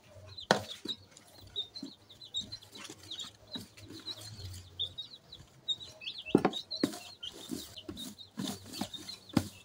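A wooden spoon stirring maize flour into mashed banana in a plastic bowl, with a few sharp knocks of the spoon against the bowl, the loudest about half a second in. Small birds chirp throughout.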